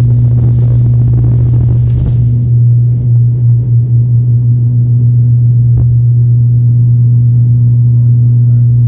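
ATR 72-500 turboprop's six-bladed propellers droning loudly at a steady low pitch under takeoff power. The drone wavers briefly in level about three to four seconds in.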